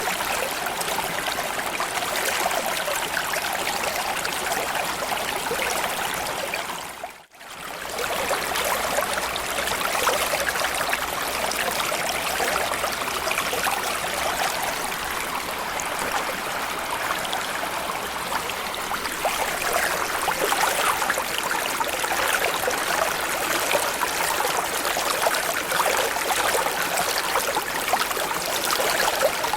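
Small stream or creek flowing steadily, water running and trickling over stones. About seven seconds in it briefly fades out to near silence and back in.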